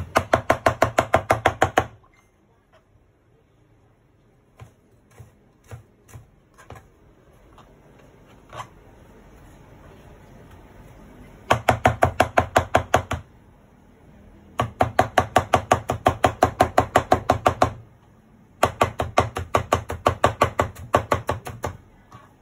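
Knife chopping rapidly on a cutting board, about seven strokes a second. It comes in four runs of two to three seconds each, with a few single knocks between the first two runs.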